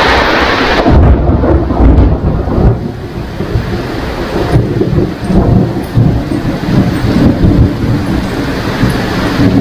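Rain falling steadily. About a second in, a long, deep roll of thunder sets in and rumbles on, swelling and easing, over the rain.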